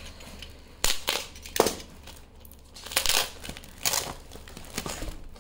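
Product packaging crinkling and rustling by hand as it is opened, in about five irregular bursts with short pauses between them.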